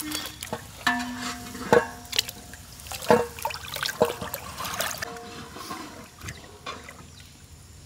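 A hand squeezing and swishing spice paste through tamarind water in a steel pot: irregular sloshing and splashing, with a few short metallic rings from the steel vessels. It thins out near the end.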